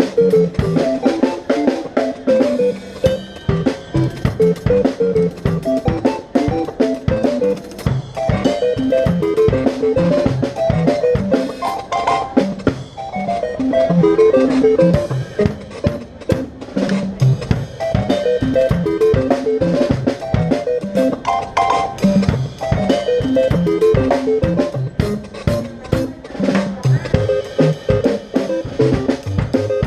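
Instrumental music: a quick melodic line of short stepping notes over a steady drum beat.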